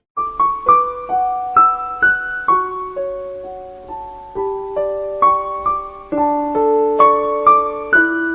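Background music: a slow piano melody of single struck notes, each ringing and fading, over held lower notes.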